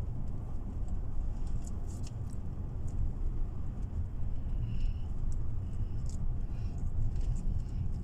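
Steady low road and engine rumble inside the cabin of a moving SUV, with a few faint clicks.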